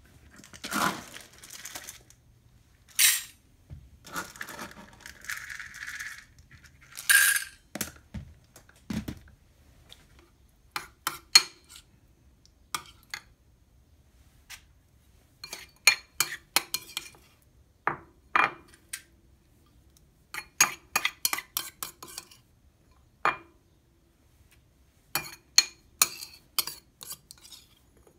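Dry cat kibble rattling into stainless steel bowls in the first few seconds, then a metal spoon clinking and scraping against a ceramic bowl and the steel bowls as wet food is stirred and scooped out, with many short, ringing clinks.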